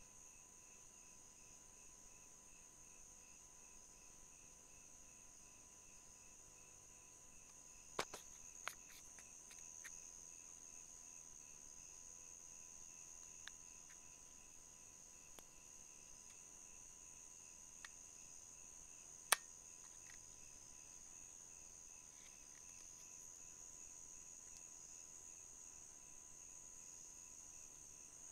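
Faint night insects, crickets, calling without a break: a high steady trill over a lower chirping that pulses in an even rhythm. A few light clicks come about eight seconds in, and a sharper single click about nineteen seconds in.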